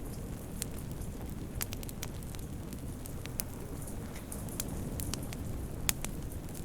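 Wood fire crackling in a fireplace: a steady low rumble of burning with irregular sharp pops and snaps, the loudest snap near the end.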